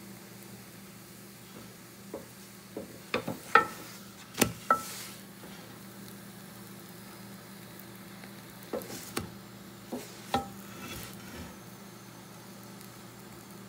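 Wooden spatula knocking and scraping against a metal tawah while turning a cooking sada roti, in two clusters of sharp taps, some leaving a short metallic ring from the griddle. A light sizzle and a faint steady hum run underneath.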